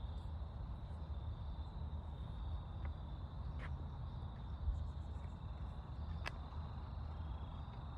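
Insects trilling steadily at a high pitch over a low rumble, with a few sharp clicks.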